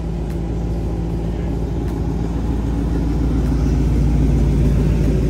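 A motor vehicle's engine running with a steady low rumble, growing louder over the few seconds as it comes closer.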